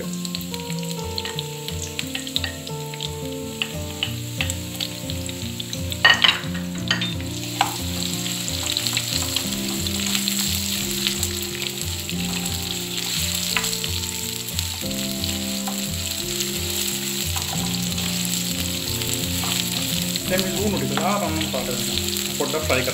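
Sliced onions frying in hot oil in a non-stick pan, a steady sizzle, stirred with a wooden spoon. A few sharp knocks come about six to seven seconds in.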